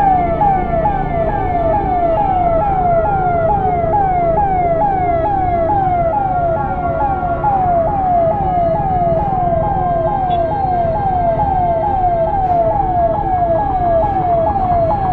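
Ambulance siren sounding in a fast repeating yelp, each cycle a quick downward sweep in pitch, about two and a half a second, over a steady low rumble of traffic.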